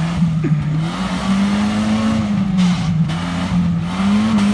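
Off-road 4x4's engine working hard, its revs rising and falling repeatedly as it pushes through a mud section.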